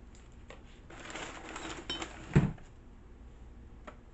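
Small objects being handled with a rustle and a brief clink, then one sharp knock about two and a half seconds in.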